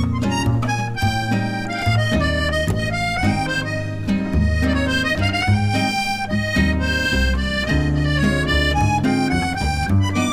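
Background music: a melody on a harmonica-like reed instrument over guitar and bass.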